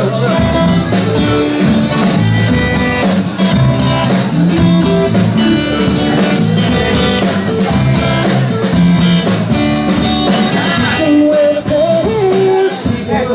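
Live rock band playing a song: guitar over bass and a drum kit with a steady beat.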